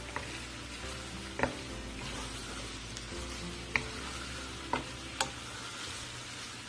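Pork hock pieces and sliced onions sizzling in oil in a nonstick wok, stirred with a wooden spatula that knocks sharply against the pan about five times.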